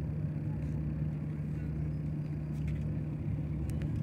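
A steady low motor hum, unchanged in pitch and level.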